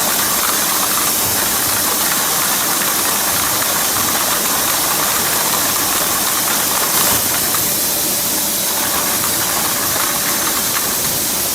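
KH-GM500 closure-cap waterfall sorting machine running: a loud, steady hissing machine noise with no pauses, and a brief knock about seven seconds in.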